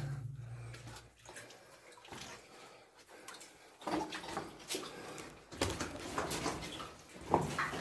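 Footsteps splashing irregularly through shallow water in a flooded mine tunnel, echoing off the rock.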